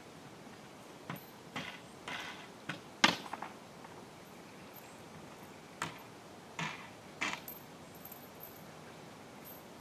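Short metallic clicks, rattles and knocks from the fittings at the back of a box trailer being worked open by hand, the loudest knock about three seconds in and a few more clicks a few seconds later.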